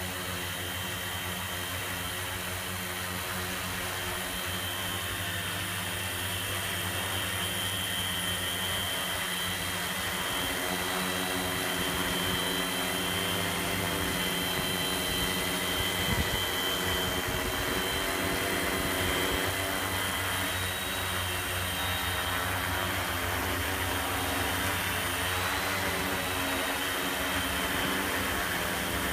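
Tarot 650 Sport quadcopter's electric motors and propellers humming steadily as it hovers, a layered multirotor drone whine that grows a little louder after several seconds.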